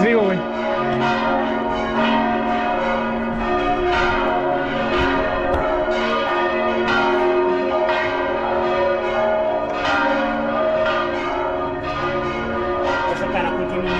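Large bronze church bells ringing loudly, heard close up in the bell tower. They are struck again and again, and their tones ring on and overlap into a dense peal.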